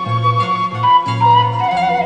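Background music: a flute-like melody of held notes over a line of bass notes.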